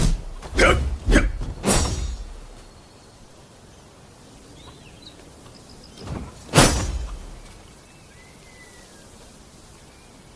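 Oxtail sabre strikes: four sharp metallic hits in the first two seconds, then a single loud one about six and a half seconds in, several of them leaving a brief high ringing.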